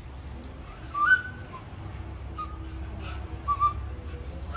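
Short whistled chirps: a louder rising one about a second in, a single note later, and a quick pair near the end, over a low steady rumble.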